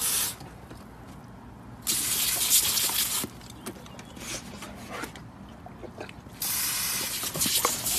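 Spray of water from a garden hose pistol nozzle, hissing in three bursts: a short one at the start, one of about a second and a half about two seconds in, and a longer one from about six and a half seconds in.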